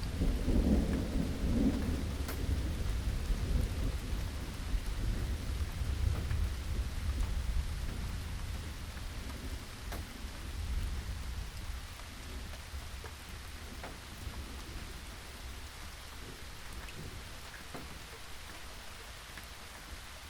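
Steady rainfall with scattered drops, under a low rolling rumble of thunder that is loudest in the first few seconds and slowly dies away over the next several.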